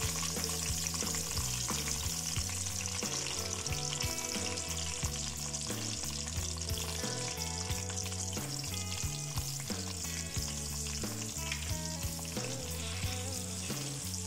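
Eggplant (brinjal) slices frying in hot oil in a pan: a steady sizzle, with occasional stirring clicks and scrapes.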